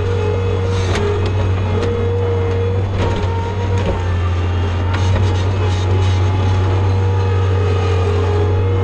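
John Deere skid steer's diesel engine running steadily at working throttle while it pushes straw, with a steady whine that steps slightly up and down in pitch and a few knocks.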